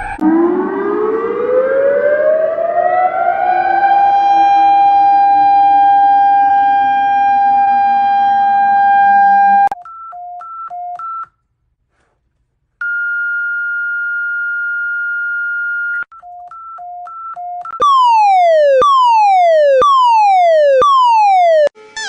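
A sequence of emergency-alert alarm tones. First a siren winds up over about four seconds to a steady high wail, with a lower tone sliding down under it. It cuts off about ten seconds in, giving way to short beeps on two pitches, a brief silence, a steady held tone, more beeps, and finally four falling sweeps about a second apart.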